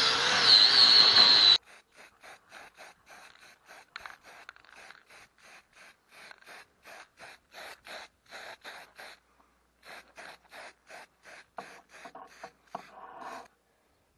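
Handheld angle grinder grinding down a weld bead on steel, with a steady whine over the grinding; it cuts off abruptly about a second and a half in. Faint, short, evenly spaced sounds follow at about three or four a second.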